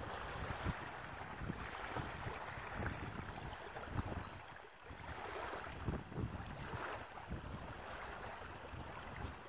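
Wind buffeting the microphone, with small waves lapping on the sandy shore in slow swells.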